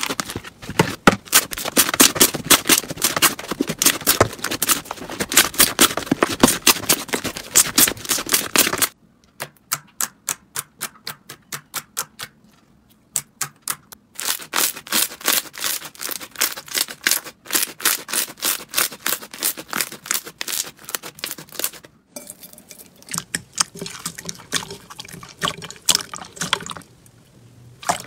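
Slime being squeezed and pressed, giving rapid wet crackling pops and clicks. It changes abruptly several times, with a quieter, sparser stretch in the middle.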